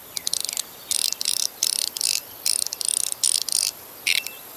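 Aluminum fidget slider being worked back and forth, giving quick bursts of sharp, high-pitched clicks. There are about six bursts, each lasting a fraction of a second.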